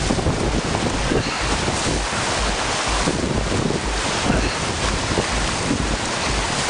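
Rushing whitewater rapids heard from a canoe in the current, with heavy wind buffeting on the microphone that comes as irregular low rumbles.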